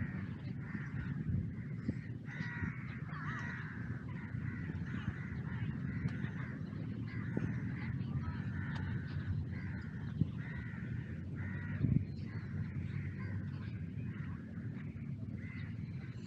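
Birds calling over and over in short harsh calls, many in quick succession, over a steady low rumble.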